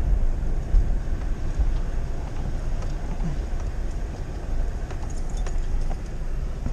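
Vehicle engine running at low speed with a steady low rumble, heard from inside a pickup truck's cab.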